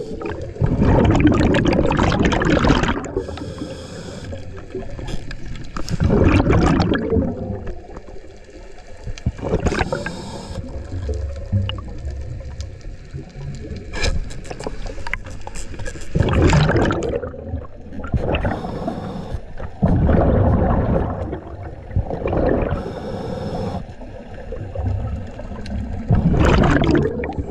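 Scuba diver breathing through a regulator underwater: loud gushes of exhaled bubbles every few seconds, with a fainter hissing inhale between them. One sharp click comes about halfway through.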